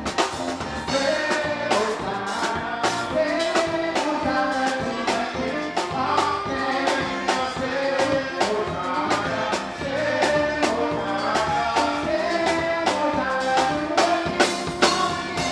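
Upbeat music with a steady drum beat and singing, cutting off at the end.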